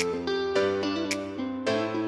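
Background music: a plucked guitar melody over a steady beat.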